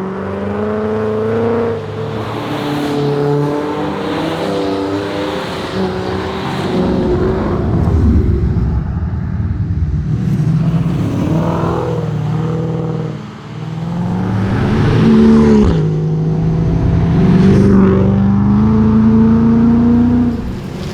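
Ford Mustang engine driven hard, revs climbing through each gear and dropping at the shifts, with a brief lift off the throttle about two-thirds of the way through before it pulls again.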